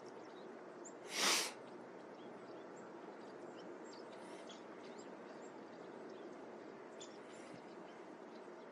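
Steady outdoor wind noise, with a short loud rush of noise about a second in and a few faint high bird chirps.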